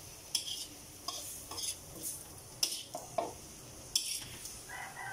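Metal tongs scraping and clinking against a metal wok, about seven separate strokes, as stir-fried cabbage and vegetables are lifted, over a faint steady sizzle.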